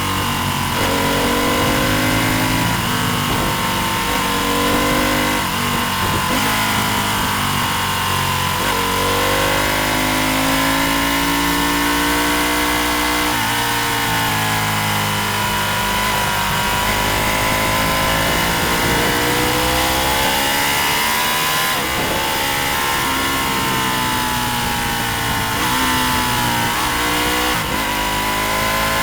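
Racing motorcycle engine at full race pace, its pitch climbing under acceleration and dropping back repeatedly, with brief breaks at the gear changes, over a steady rush of wind noise.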